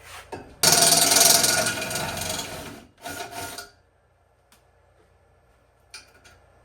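Power drill running a step bit through an exhaust pipe, enlarging a pilot hole for an O2 sensor bung. One long cut of about two seconds is followed by a short second burst, then quiet with a couple of light clicks.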